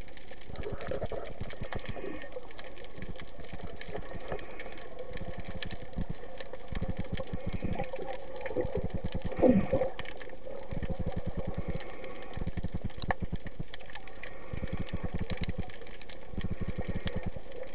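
Underwater sound picked up by a camera in a waterproof housing: a steady hum with spells of rapid low pulsing, and one short falling tone about halfway through, the loudest moment.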